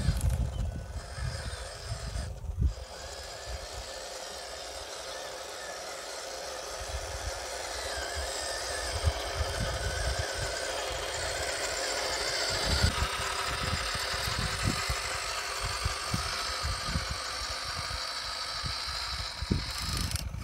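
Electric motor and gearbox of a 6x6 RC truck loaded with dirt whining as it drives, growing louder as it approaches, with irregular low rumbling thumps throughout.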